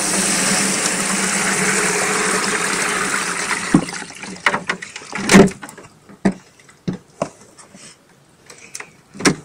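Liquid from a home-made steam wax melter poured in a steady stream through a sieve into a plastic tub, for about three and a half seconds. Then a run of knocks and clunks as a box of melted-down comb residue is tipped and emptied over the tub.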